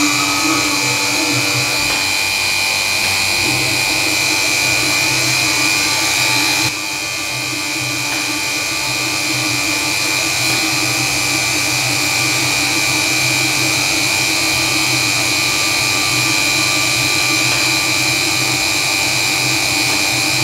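BF20 milling machine's spindle, driven by a 1 hp three-phase motor, running steadily while an end mill cuts an aluminium block: a continuous machining whine with a steady high tone. The level drops slightly and abruptly about seven seconds in, then carries on evenly.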